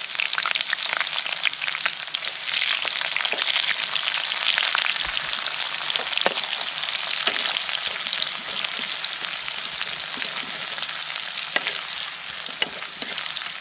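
Garlic and sliced red onion sizzling in hot oil in a wok, stirred with a metal ladle that clicks and scrapes against the pan now and then. The sizzle is fullest in the middle stretch.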